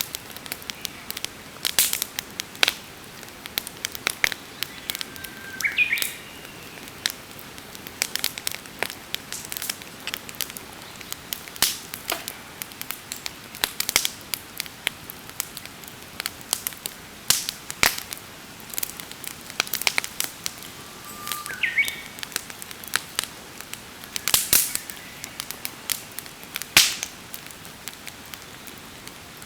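Wood campfire crackling, with irregular sharp pops and snaps over a low hiss. Twice a short rising bird call sounds over it.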